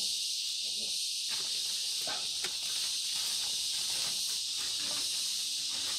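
Plastic bag crinkling and rustling in irregular crackles as it is handled and tied around a banana bunch, starting about a second in, over a steady high-pitched hiss.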